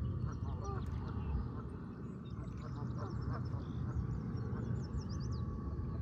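Waterfowl quacking, a few calls in the first second and again around three seconds in, with small birds chirping high and thin through the middle and later part, over a steady low rumble.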